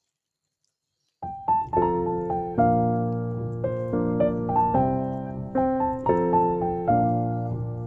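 Background piano music, starting suddenly about a second in after near silence, with single notes struck over a held bass.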